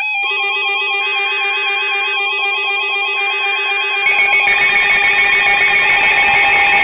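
Several weather alert radio receivers sounding their electronic alarm tones at once, steady and warbling pitches layered together, with a hiss joining about four seconds in. The alarms signal an incoming NOAA Weather Radio alert, here a severe thunderstorm warning.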